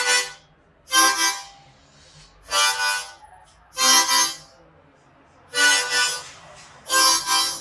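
Hohner Marine Band harmonica in C played as a slow train rhythm: six separate chords about a second and a half apart, each breath split into two pulses by the tongued 'tuku' on the draw and 'taka' on the blow.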